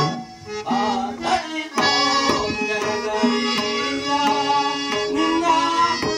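Harmonium playing a sustained melody over sparse tabla strokes. The sound dips quieter for about the first second and a half, then the full harmonium tone returns.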